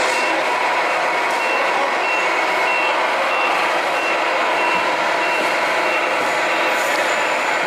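Reverse warning beeper of a radio-controlled model truck's sound module: a single high-pitched beep repeating evenly about one and a half times a second, over steady background noise.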